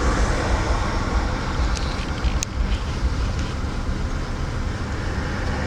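1999 Acura TL's 3.2-litre V6 engine idling roughly with an unsteady idle, the sign of a faulty idle air control valve.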